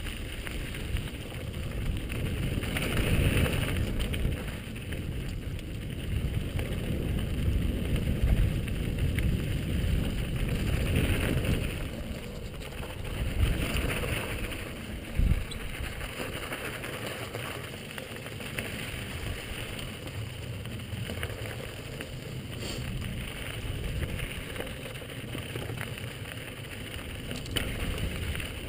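Downhill mountain bike rolling fast over a loose, rocky dirt trail: a steady rumble of knobby tyres on gravel and wind buffeting the helmet-mounted camera's microphone, louder for the first ten seconds or so. One sharp knock from a bump about fifteen seconds in, with scattered small clicks and rattles.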